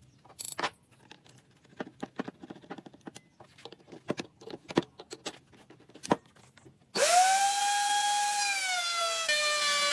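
Scattered light taps and knocks, then about seven seconds in an electric power tool switches on and spins up to a loud, steady whine that dips slightly in pitch near the end.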